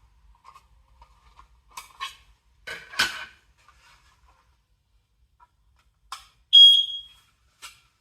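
Aroha Link combination smoke and carbon monoxide detector giving one short, high-pitched beep about half a second long, late on. Before it come several plastic clicks and knocks from the detector being handled, with a cluster about three seconds in.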